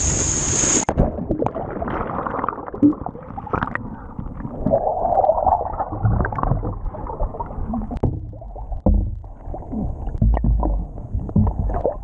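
Water skis slicing through a lake, spray hissing for about the first second. The sound then cuts off abruptly as the skier plunges under, giving way to muffled underwater gurgling and bubbling with scattered knocks.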